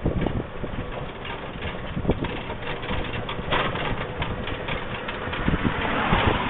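Golf cart driving along, its motor running steadily under a rough, noisy rumble with frequent low thumps. A brighter hiss swells twice, about three and a half seconds in and again near the end.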